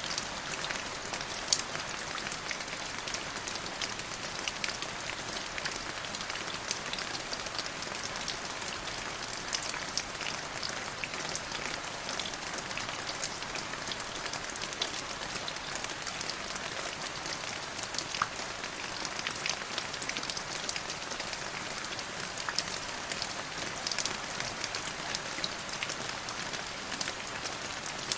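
Steady rain falling on a surface: an even hiss with many separate drops ticking through it.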